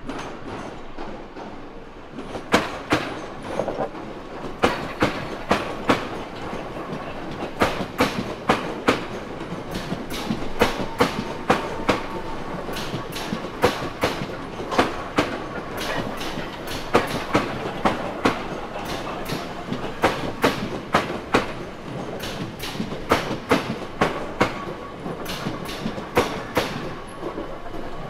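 Train wheels clicking over rail joints and points as the train runs past, the clicks coming in quick pairs and groups over a steady rumble, with a faint wheel squeal about a third of the way through.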